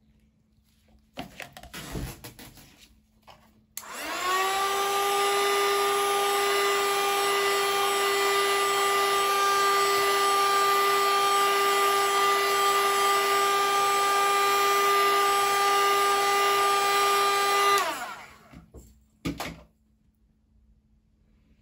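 Handheld heat gun switched on and blown over freshly poured epoxy resin coasters: a few knocks of handling, then its fan motor spins up about four seconds in to a loud, steady whine. It runs for about fourteen seconds, then winds down, with a single click shortly after.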